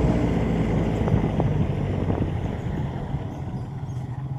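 A vehicle engine running steadily on the move, a low drone with scattered rattles. It eases off slightly after about three seconds.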